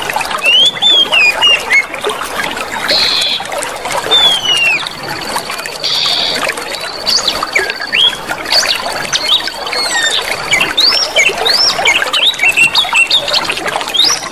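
Clear water running and trickling steadily, with many small birds chirping and whistling short rising and falling notes over it. A thin, steady high tone runs through the middle.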